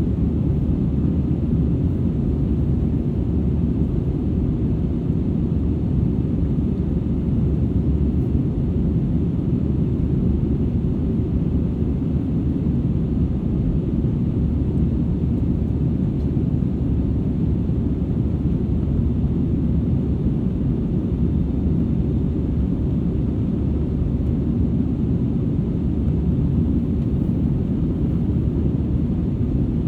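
Steady low rumble of engine and airflow noise inside an Airbus A320-200ceo cabin, heard from a rear seat, even and unchanging throughout.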